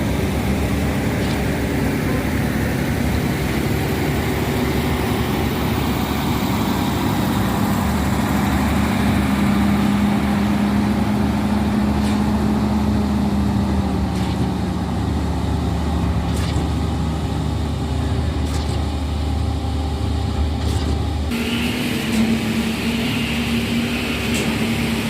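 Heavy diesel truck engine running steadily, its drone sagging slightly in pitch about halfway through. About 21 seconds in, the sound switches abruptly to a different, steadier engine hum.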